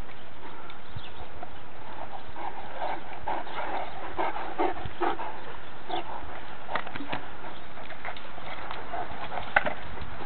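Great Danes making a quick run of short vocal sounds a few seconds in, with scattered clicks and one sharp snap near the end, over a steady hiss.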